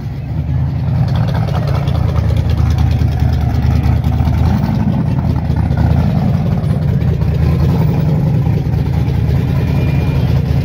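A car engine running steadily at idle, a low rumble.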